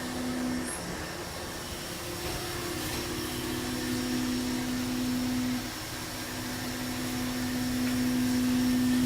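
1996 Haas VF3 CNC vertical mill machining aluminium: a steady whine from the spindle and cutter over a whirring machine noise. The whine breaks off briefly about a second in and again after about five and a half seconds, then resumes and grows louder near the end.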